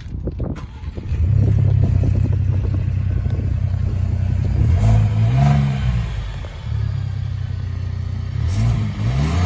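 Exhaust of a 2023 Ford Expedition's 3.5-litre twin-turbo EcoBoost V6 on a cold start. The engine catches about a second in and settles into a steady idle. The throttle is blipped twice, the pitch rising and falling, once in the middle and once near the end.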